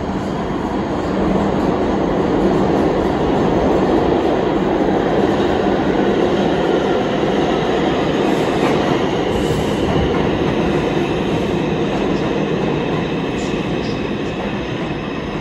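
R142 subway train pulling into an underground station, its wheels rumbling on the rails as the cars pass. The sound is steady and loud, growing about a second in and easing slightly near the end, with a faint thin high squeal over the rumble.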